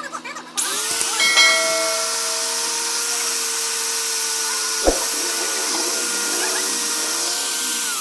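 Electric power tool running steadily with a loud hiss, such as a drill or grinder working metal. It starts about half a second in, gives a sharp tick about five seconds in, and winds down at the end with a falling pitch.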